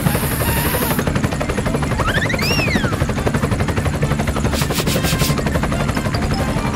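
Helicopter rotor sound, a steady fast chopping that holds at an even level. About two seconds in, a short whistle-like tone rises and falls over it.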